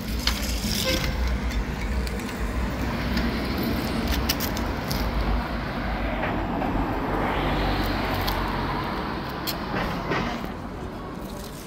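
Road traffic running steadily, with a vehicle passing that swells through the middle and fades near the end; a few short clicks over it.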